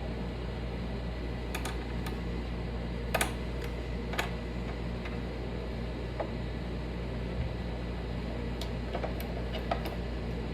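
A few light clicks and taps, sparse and irregular, the two loudest about three and four seconds in, over a steady low mechanical hum.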